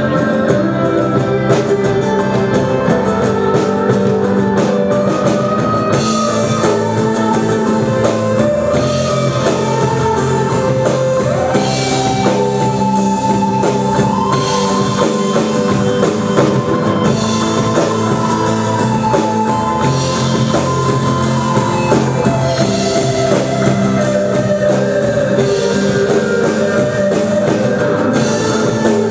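Live rock band playing through a PA: electric and acoustic guitars over a drum kit, with the cymbals coming in stronger about six seconds in.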